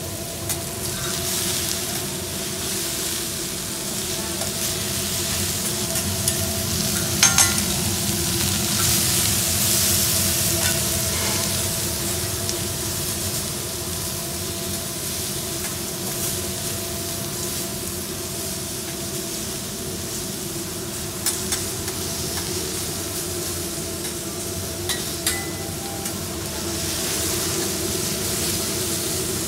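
Shrimp, ayote squash and onions sizzling steadily on a teppanyaki steel griddle, with a steady hum underneath. A few sharp metal clicks come from the spatula striking the plate, one about seven seconds in and more later on.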